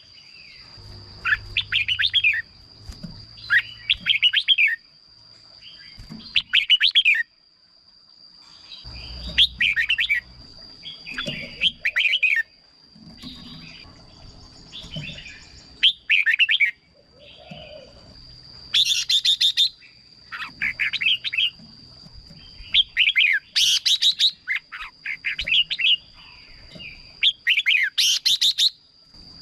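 Red-whiskered bulbul singing: short, warbling phrases of about a second each, repeated every second or two with brief pauses. A steady high tone runs underneath.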